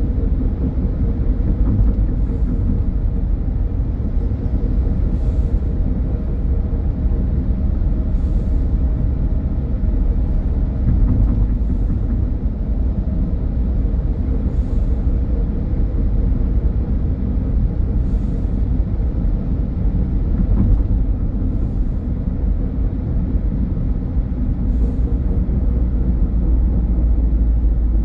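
Steady low rumble of a car driving on the road, with tyre and engine noise and a few faint, irregular ticks.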